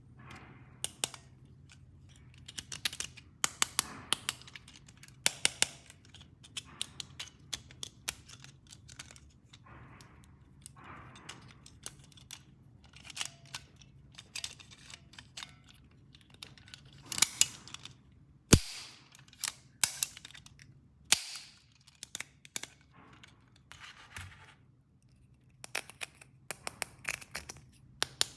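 Hard plastic toy pieces and packaging being handled: a long run of sharp clicks, taps and snaps with short rustles in between, the loudest snaps about two thirds of the way through.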